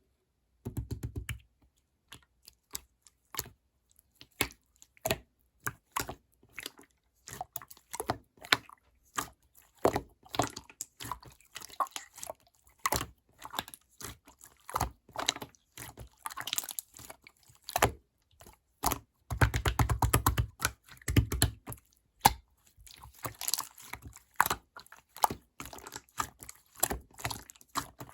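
Sky-blue clear slime being squished and pressed by hand, giving irregular sticky clicks and pops, with denser runs of crackling about a second in and again about two-thirds of the way through.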